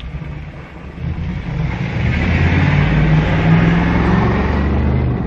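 A motor vehicle's engine running close by, growing louder about a second in and staying loud.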